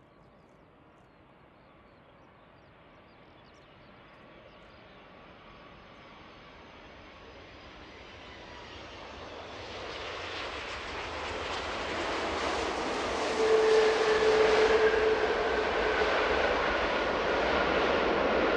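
Airbus A330-300 jet engines on landing approach, growing steadily from faint to loud as the airliner comes closer. A rushing noise carries steady whining tones and is loudest about two-thirds of the way through, staying loud to the end.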